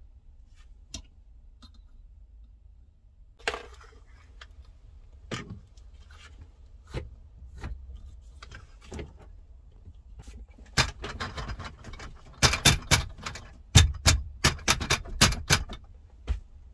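Small metal curtain rings clacking and rattling on a curtain rod as the curtain is handled and slid along it. There are scattered clicks and knocks first, then a dense run of rattling in the last third.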